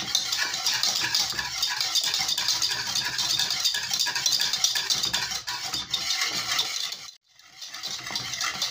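Wire whisk beating a thick milk-and-cornstarch pudding fast in a metal pot: a quick, continuous scraping and clicking of the wires against the pot as the starch thickens on the heat. It breaks off briefly about seven seconds in, then starts again.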